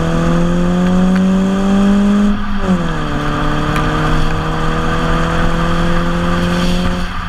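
2011 Ford Focus S's four-cylinder engine through an FSwerks Stealth exhaust, accelerating through the gears. The engine note climbs steadily, drops sharply with an upshift about two and a half seconds in, then climbs again before falling away near the end.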